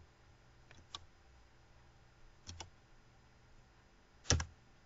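Computer mouse clicks, a few short separate ones: a single click about a second in, a quick double click past halfway, and a louder click near the end.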